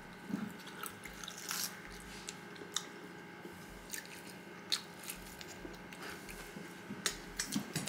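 A person biting and chewing a fried chicken wing coated in mild sauce, close to the microphone: quiet, scattered wet smacks and small crunchy clicks.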